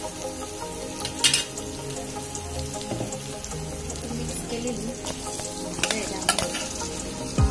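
Onion-tomato masala frying in ghee in an aluminium kadhai on a gas stove, a steady sizzle. A metal spoon clicks against the pan about a second in, and twice more near the end as mashed potatoes and vegetables are spooned in from a steel bowl.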